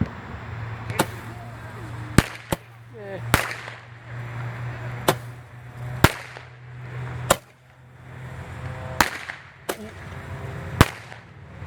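Cutting Edge Color Thunder roman candle firing: about ten sharp bangs at irregular spacing, one every second or so.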